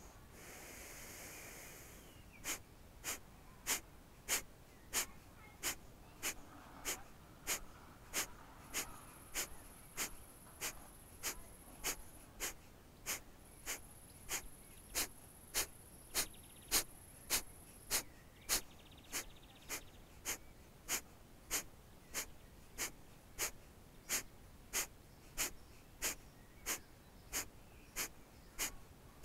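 Kapalabhati breath of fire. One longer breath comes first, then a steady run of short, sharp, forceful exhalations through the nose, about one and a half a second, with the inhalations between them left passive and barely heard.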